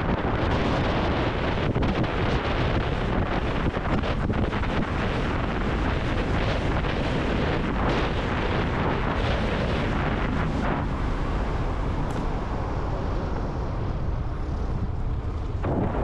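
Wind rushing hard over the microphone of a handlebar-mounted camera on a fast-moving electric bike, a steady, even roar. It eases off near the end as the bike slows.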